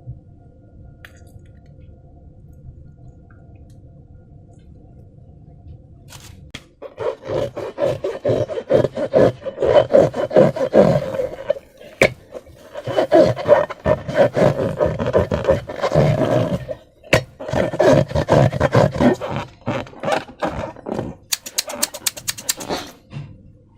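Slime being squished and worked by hand: wet squelching and crackling in quick succession, starting about seven seconds in after a faint low hum, with brief pauses twice.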